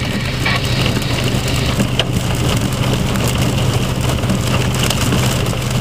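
Steady hiss of wind-driven hail and rain, with the low, even hum of a vehicle engine idling underneath and a few faint ticks.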